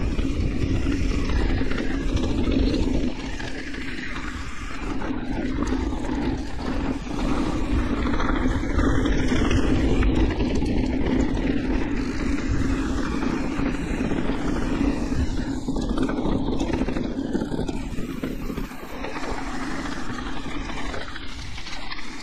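Electric mountain bike riding down a dirt enduro trail: a steady rumbling noise of the ride with no clear single events, easing briefly about three seconds in and again near the end.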